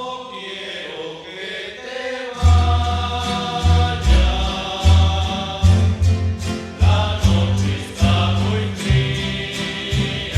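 A rondalla, a group of voices with guitars and bass, opens a slow song. Sustained vocal chords are heard first, and about two seconds in the bass and strummed guitars come in with a steady beat under the singing.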